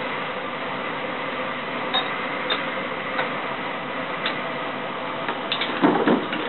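A child's tricycle rolling and turning across a hard floor, with scattered light clicks and rattles from the trike, and a short louder noise near the end.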